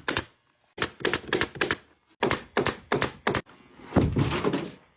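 Staple gun driving staples through a vinyl seat cover into a pontoon seat back: quick runs of sharp clacks, with a longer, rougher burst near the end.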